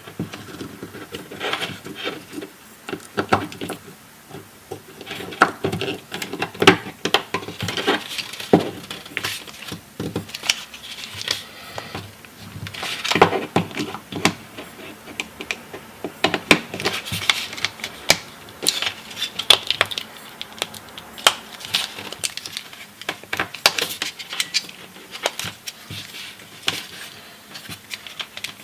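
Irregular clicking, tapping and rattling of small hard objects being handled, with sharp knocks at uneven intervals.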